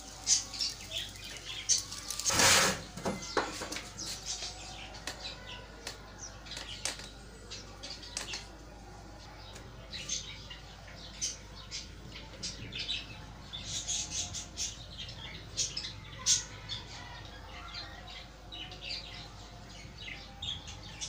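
Birds chirping in short, scattered high calls throughout, with one brief loud noise burst about two and a half seconds in.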